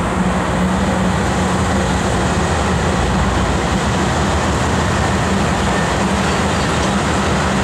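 Diesel-electric freight locomotives approaching and passing, a steady engine drone with a constant low hum.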